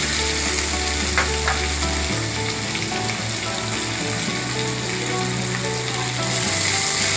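Sliced onions sizzling steadily as they fry in hot refined vegetable oil in a kadai. A spatula stirs them near the end.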